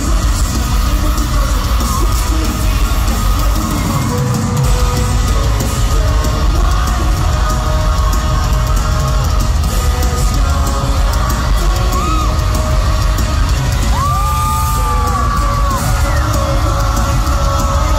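Loud live rock music with a heavy bass through an arena PA, heard through a phone's microphone, with the crowd yelling and whooping over it.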